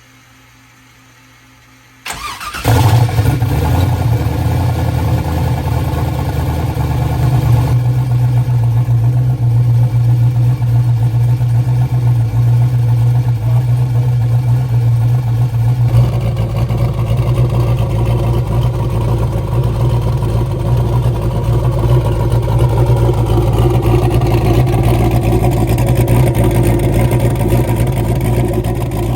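Turbocharged 5.3-litre LS V8 with a new camshaft cranking and catching about two seconds in, then running steadily: its first start after the cam swap. The engine note shifts around eight and sixteen seconds in.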